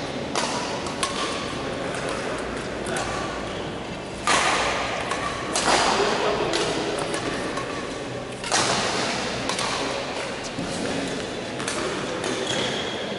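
Badminton rally: a shuttlecock struck back and forth with rackets, sharp pings at irregular intervals of about a second, echoing in a large hall. A few louder, longer bursts of noise come about a third of the way in, just before halfway and again past halfway.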